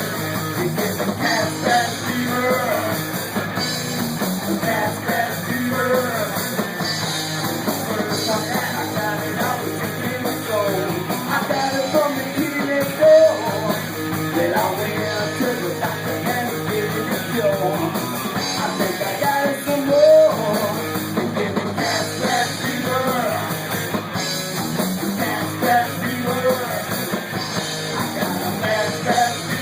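Rock music with electric guitar, drums and a singing voice, playing steadily.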